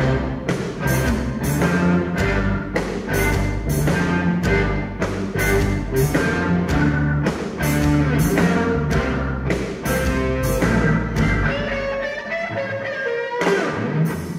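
Live blues band playing an instrumental passage with guitars, bass and drums, pounding out a steady, heavily accented beat of about two to three hits a second. Near the end the hits give way to held, ringing chords.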